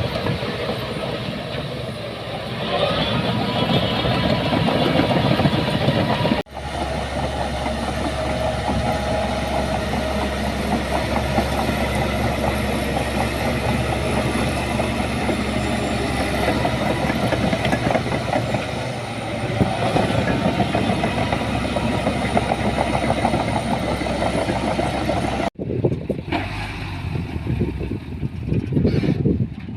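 Diesel engine of heavy earthmoving machinery running steadily. The sound breaks off abruptly twice, about six seconds in and near the end, where the clip is cut.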